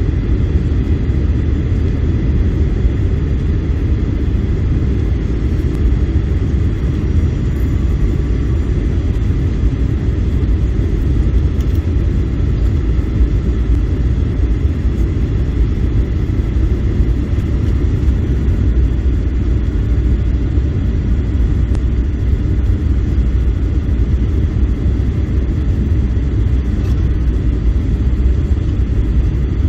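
Boeing 737-800 cabin noise: a loud, steady, deep rumble of the engines and the airflow past the fuselage.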